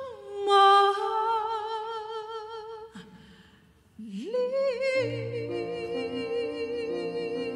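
Female vocalist holding a long note with vibrato over very light accompaniment, then falling almost silent for about a second before sliding up into the next phrase of a Tagalog love ballad. About five seconds in, the orchestra comes in under her with a soft sustained chord.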